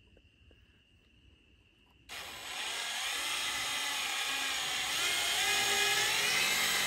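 Craftsman cordless drill driving a screw through a metal hinge plate into a wooden door frame: its motor starts about two seconds in and whines steadily, the pitch wavering as the screw goes in. Before it starts, crickets chirr faintly.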